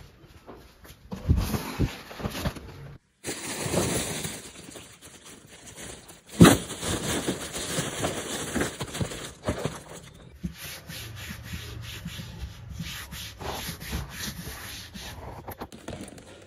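Rustling and rubbing of plastic bags, clothes and a plastic box as belongings are rummaged through and sorted by hand, with small clicks and one sharp knock about six seconds in.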